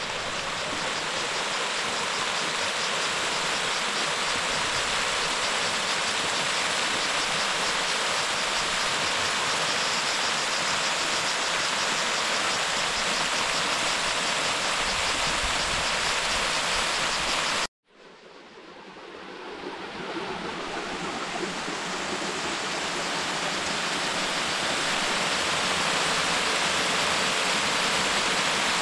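Rushing water, a steady, full rush. It cuts out abruptly about 18 seconds in and fades back up again.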